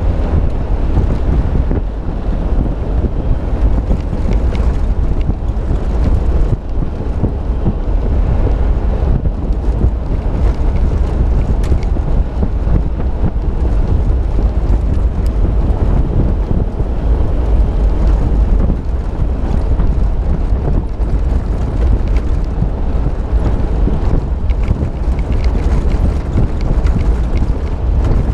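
Steady, loud wind rumble buffeting the microphone of a camera on a moving Suzuki SJ413, with the vehicle's road noise underneath.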